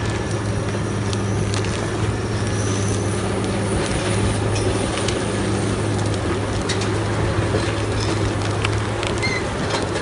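Heavy tractor's diesel engine running steadily under load while a spiked rotary drum rips tree stumps and roots out of the soil, with scattered sharp cracks and knocks of wood and debris.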